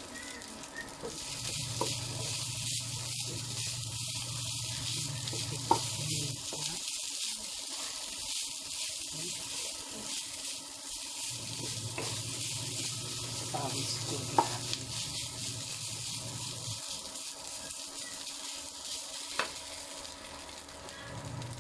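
Rice sizzling and frying in a hot pan while it is stirred, as a steady hiss, with three sharp clicks standing out along the way.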